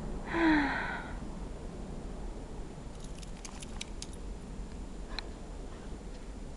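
A short falling voice-like sound about half a second in, then the metal tags on a dog's collar jingling in a quick run of clicks as the dog trots.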